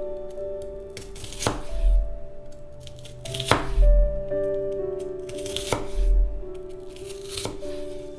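Chef's knife slicing through a red onion onto an end-grain wooden cutting board, four slow cuts each ending in a sharp knock of the blade on the board. Background music with a soft low beat plays throughout.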